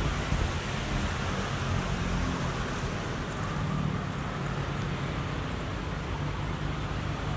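Steady outdoor background noise: a low rumble and hiss, with a faint low hum coming in about two seconds in.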